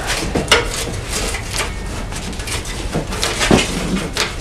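Snowmobile drive belt being worked off its rusty clutch pulley by hand: rubber rubbing and scraping against the metal sheave, with a few sharp knocks, about half a second in and twice more around three seconds in.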